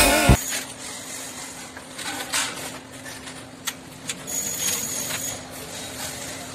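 Aluminium podium scaffold parts being fitted together by hand: scattered light clicks and knocks of aluminium tubing, with a brief high-pitched squeak about halfway through.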